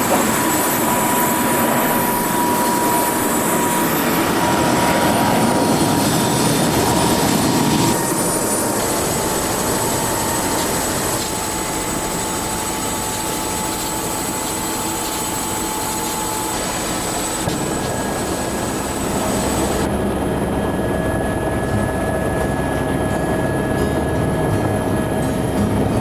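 Steady, loud vehicle running noise with a faint high whine; its tone shifts about two-thirds of the way through.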